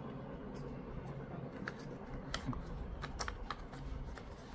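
Paper warranty card handled and folded by hand, with soft, scattered crinkles and light ticks.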